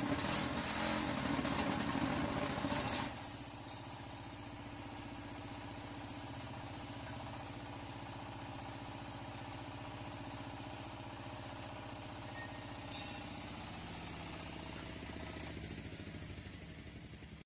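Diesel power unit of a hydraulic concrete block machine running steadily. For about the first three seconds it is louder, with the machine clattering as it works, then it drops to a steady even run.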